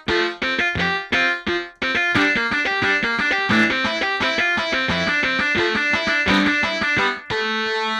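A sampled keyboard patch from the East West Ghost Writer library being played: a run of quick, short notes, then held chords from about two seconds in.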